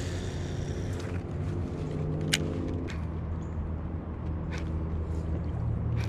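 Steady low hum of a distant engine, with two sharp clicks, one a little past two seconds in and another about four and a half seconds in.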